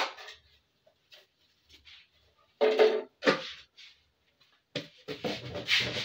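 Aluminium cooking pots and a lid knocking and scraping against each other and the stove as they are handled, with a sharp clink at the start, a couple of louder clatters about halfway through, and a busier run of clanks near the end.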